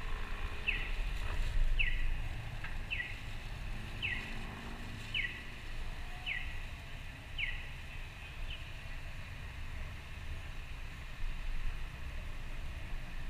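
Pedestrian crossing signal chirping: a short falling electronic chirp about once a second, which stops about eight seconds in, over a steady low rumble of street traffic.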